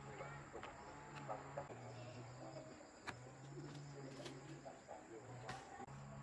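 Quiet outdoor ambience: a steady high insect whine, faint bird calls, a low hum that comes and goes in stretches of a second or two, and a few sharp clicks.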